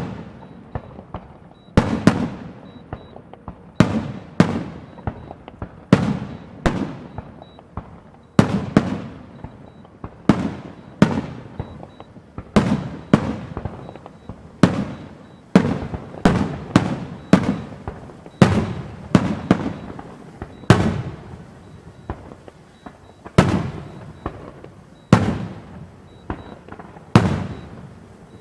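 Aerial fireworks going off in a steady succession of sharp bangs, about one every second or two. Each bang trails off in a rolling echo.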